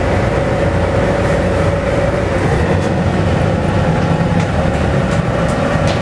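Volvo B7TL double-decker bus running on the road, heard from inside the bus: its six-cylinder diesel engine and drivetrain give a steady low rumble. A steady whine over it fades out about two seconds in and comes back about five seconds in.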